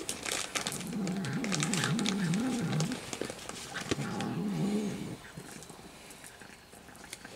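A cat growling low over food, its pitch wavering up and down, in a stretch of about two seconds followed by a shorter one about a second later. Dry kibble crunching and clicking is heard alongside.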